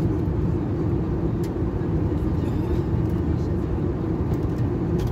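Steady in-flight cabin noise of an Airbus A321: a constant low rumble of engines and airflow, with a few faint clicks.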